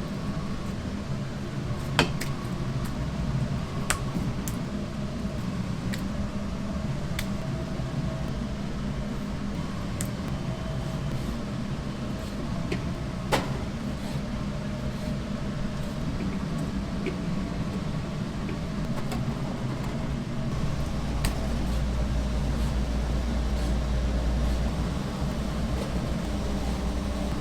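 Steady hum of a kitchen fan or ventilation, with scattered sharp clicks and knocks of utensils or tools. A deeper low rumble swells for a few seconds near the end.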